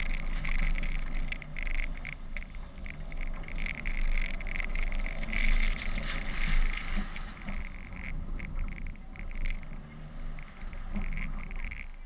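Audi Q5 driving through deep snow, heard from a camera mounted on its side: wind buffeting and snow spray against the camera with a low rumble underneath. The noise rises and falls unevenly.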